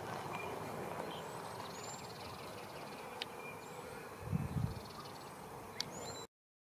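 Outdoor rural ambience: several thin, high bird chirps that curve upward, a faint insect buzz twice, and a steady background hiss. There is a short low rumble on the microphone a little past four seconds in, and the sound cuts out to silence near the end.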